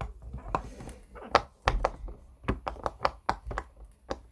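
Silicone pop-it fidget toy bubbles being pressed one after another, each giving a soft pop: a quick, irregular run of clicks, roughly three or four a second.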